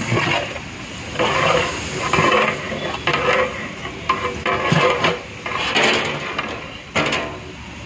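Perforated metal ladle scraping and stirring sliced onions in a large metal biryani pot, in repeated strokes about once a second, over the sizzle of the onions frying in oil.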